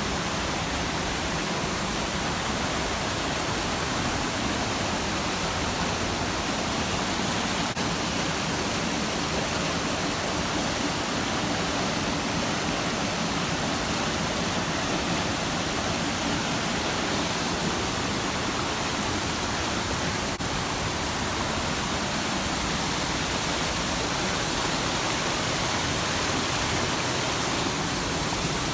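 A waterfall rushing: a steady, unbroken wash of falling water.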